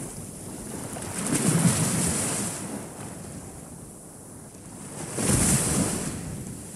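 Small waves breaking on a beach: two waves in turn, each a rush of surf that swells up and fades away, the first about a second in and the second about five seconds in.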